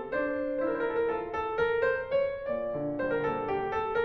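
Classical piano music playing as background music, a steady stream of quick notes.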